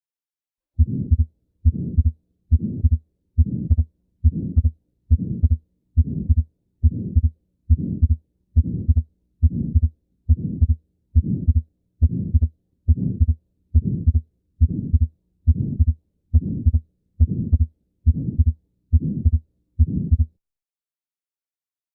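Recorded heart sounds: a steady, regular heartbeat at a little over one beat a second, about 24 beats. Each beat is a pair of low thuds with sound continuing between them. The beats start about a second in and stop abruptly about two seconds before the end.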